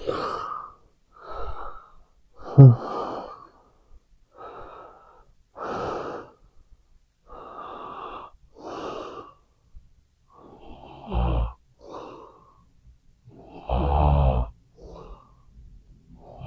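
A sleeping person snoring: a quick, irregular run of breathy, wheezy breaths, about one every second or so. Near the three-second mark and again about eleven and fourteen seconds in, a breath carries a low rattling snore.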